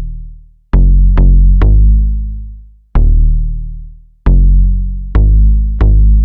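Hip hop intro music: an instrumental beat of deep drum-machine bass hits that strike hard and fade out slowly, falling in uneven groups of one to three.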